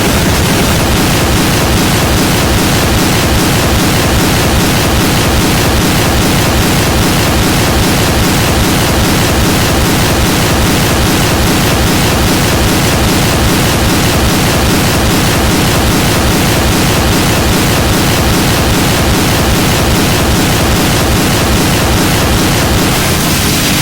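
Loud, steady wall of static-like noise with a fast fluttering pulse, part of a countdown sound effect.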